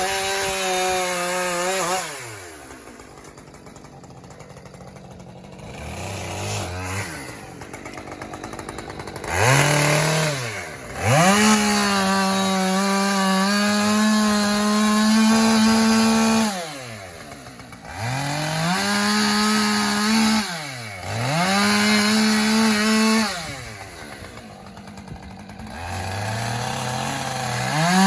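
Husqvarna 545 50 cc two-stroke chainsaw revved to high speed and dropped back to idle about six times. The pitch climbs and falls with each rev, and the longest rev is held for about five seconds in the middle.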